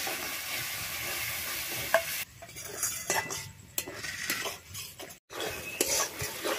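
Onions and ginger-garlic paste frying in a large metal wok, a steady sizzle, with a single sharp clink about two seconds in. After that a steel spatula stirs and scrapes the masala against the wok in uneven strokes with short pauses.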